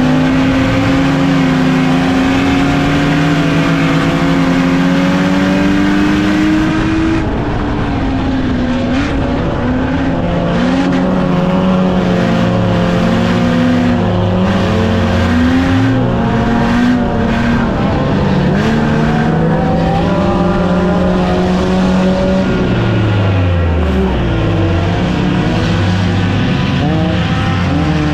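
Stock car engines racing, several at once, their pitch repeatedly climbing under throttle and dropping off again every second or two.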